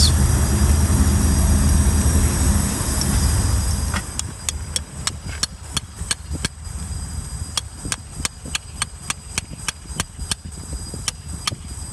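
Claw hammer tapping steel anchor bolts down into holes drilled in a concrete pad: a quick run of sharp taps, about three or four a second, starting about four seconds in. Before the tapping, a steady low rumble.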